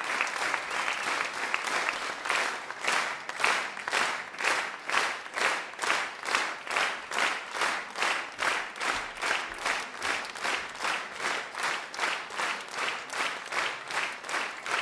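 Concert-hall audience applauding: dense, scattered clapping that about two seconds in settles into rhythmic clapping in unison, about two and a half claps a second.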